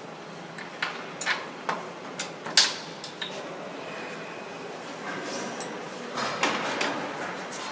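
Metal toggle clamps on the arch-bending jig clacking as they are worked by hand: a run of sharp clicks about every half second in the first three seconds, and a couple more near the end, over steady background noise.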